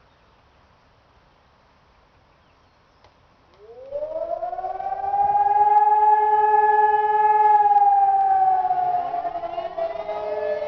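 ECN2400 and E57 civil-defence sirens sounding a short test signal. About three and a half seconds in, a siren winds up from quiet to a steady, loud wail made of several tones. Near the end it slides down in pitch as a second siren rises in.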